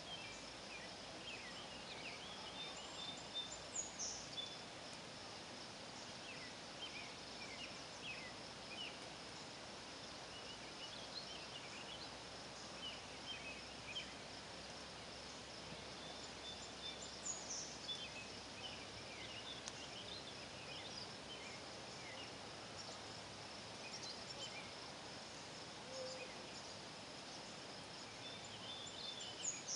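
Evening outdoor ambience by a lake: a steady high insect trill with clusters of short bird chirps and calls coming and going. The louder chirps come about four seconds in, around halfway and near the end.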